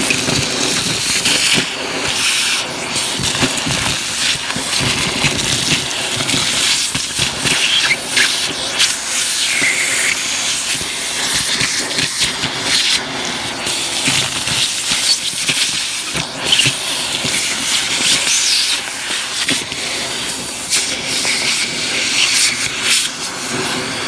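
Vacuum cleaner running steadily, its crevice tool sucking up dust, lint and grit from a heap on cardboard. Small debris clicks and rattles as it is drawn up the tube.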